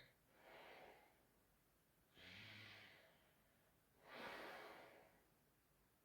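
A sleeping person's faint, heavy breathing: three breaths about two seconds apart, the second with a light low snore.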